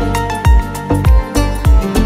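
Background music with a steady beat: a deep kick drum hits about twice a second under sustained melodic notes and crisp higher percussion.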